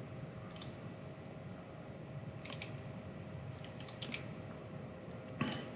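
Computer keyboard keys tapped in short, scattered runs: a single keystroke early, a pair about halfway, a quick run of several a little later, and a couple more near the end.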